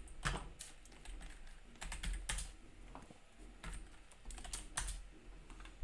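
Typing on a computer keyboard: light, irregular keystrokes entering a short search term, a few taps at a time with short pauses between.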